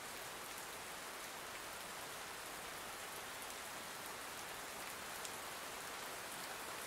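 Steady rain falling, an even soft hiss.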